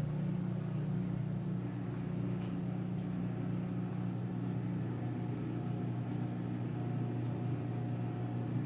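A steady low hum with no change in level, and a faint tick about three seconds in.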